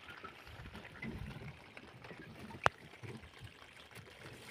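Faint trickling, sloshing water with low handling rumbles about a second in, and a single sharp click a little past halfway.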